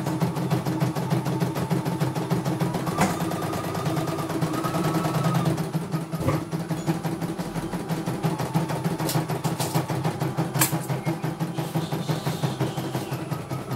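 CNY E900 computerized embroidery machine stitching a design: a rapid, even needle chatter over the motor's steady hum, with a few sharper clicks along the way.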